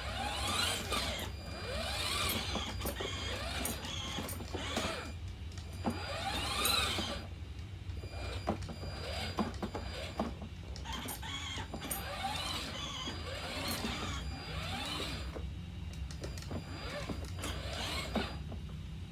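Electric drive motors and gearboxes of a 12 V kids' ride-on car whining as it drives, the pitch rising and falling again and again over a steady low hum.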